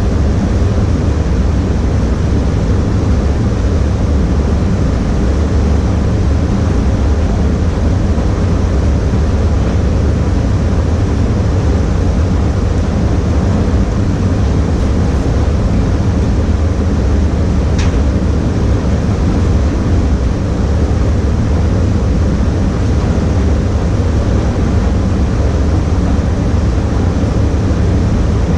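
Steady, unchanging rumble and hiss of a paint spray booth's air system running.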